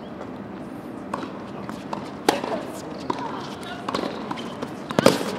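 Tennis ball hit by rackets and bouncing on a hard court during a doubles point: a series of sharp pops, a strong one a little after two seconds and the loudest cluster about five seconds in. Faint voices are in the background.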